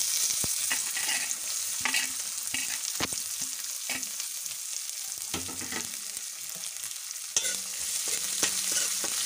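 Chopped onions sizzling in hot oil in a metal kadai, the sizzle jumping up suddenly as they go in, with occasional knocks and scrapes of stirring against the pan.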